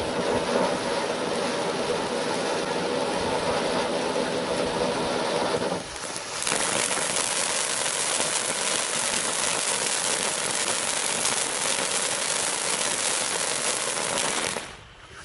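Iron Man IM4110 '5 Minute Safari' multi-stage fountain firework spraying sparks with a steady rushing hiss. About six seconds in it dips briefly and switches to a brighter, harsher hiss as the next effect takes over, then falls away near the end as that stage burns out.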